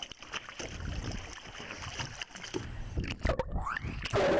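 Water sloshing and splashing around an underwater camera housing at the surface, with irregular knocks. Near the end it changes to a muffled, rising bubbling as the housing goes under.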